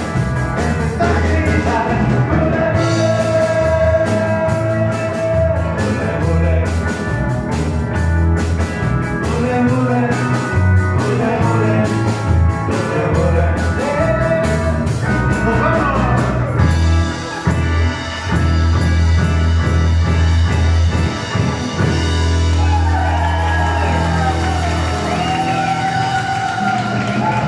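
Live rock and roll band playing: electric guitars and a strong bass line over a steady beat, with sung vocals.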